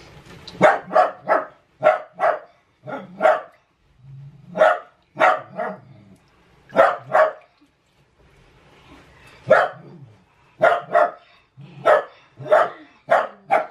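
A small dog barking repeatedly in short, sharp barks, mostly in pairs or quick runs, with a pause of about two seconds midway.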